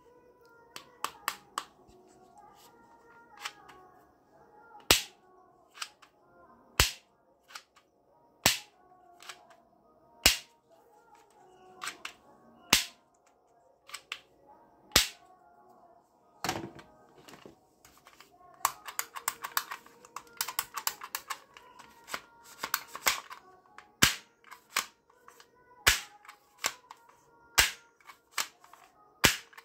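Plastic toy guns being cocked and triggered: sharp single clicks every couple of seconds, with a run of fast rattling clicks about two-thirds of the way through.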